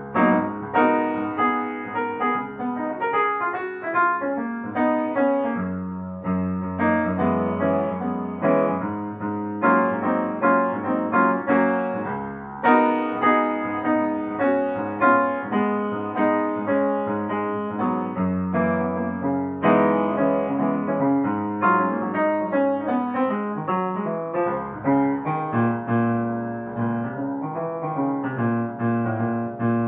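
Background piano music: a continuous flow of notes over held bass notes that change every few seconds.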